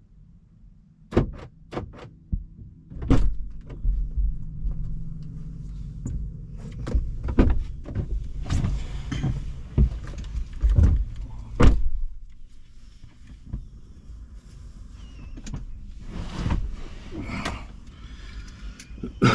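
A string of separate knocks, clicks and thumps over a low rumble, the handling noises of getting into a car, with doors opening and shutting.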